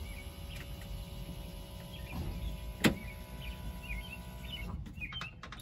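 A single sharp click of a dash toggle switch being flipped, about three seconds in, over a faint steady electric hum, with faint bird chirps.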